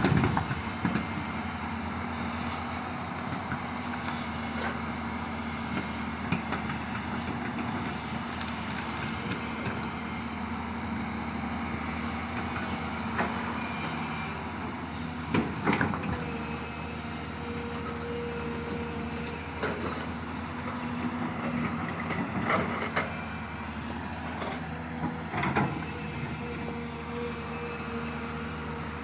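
Crawler excavator's diesel engine running steadily under hydraulic load, with a few sharp clanks in the second half of the stretch.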